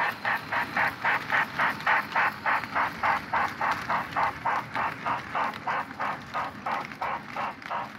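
Onboard sound system of an O scale model geared steam locomotive playing steady exhaust chuffs, about three a second, while the model runs.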